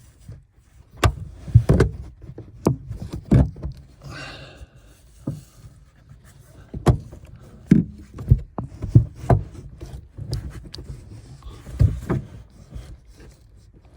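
Irregular knocks and clicks of hands working at a car's tailgate while a tailgate gas strut is refitted, its end wrapped in tape to stop a rattle.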